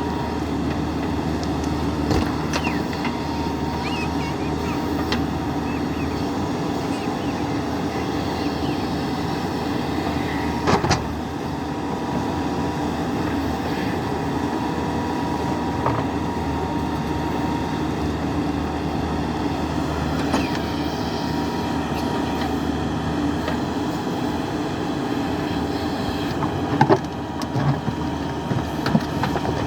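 JCB 3DX backhoe loader's diesel engine running steadily while digging, with a few sharp knocks, the loudest about eleven seconds in and several near the end.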